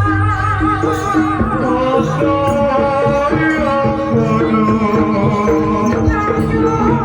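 Live Javanese jaranan ensemble music: drum strokes and repeating notes from gongs or gong-chimes under a high, wavering, ornamented melody line.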